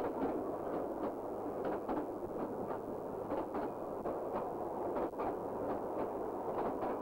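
Train running: a steady rumble with the clickety-clack of wheels passing over rail joints, the clicks often coming in quick pairs.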